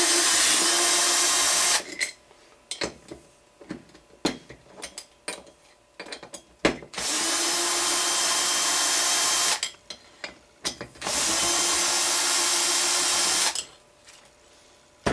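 Cordless drill-driver backing screws out of a small two-stroke engine's clutch housing: three runs of about two and a half seconds, each a steady motor whine, the first stopping about two seconds in and the others starting about seven and eleven seconds in. Light clicks and taps of the bit and parts being handled come between the runs.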